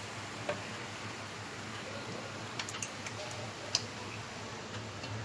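A handful of short, light clicks and ticks from a plastic water bottle being handled at a wall-mounted water purifier's tap, over a steady hiss and low hum.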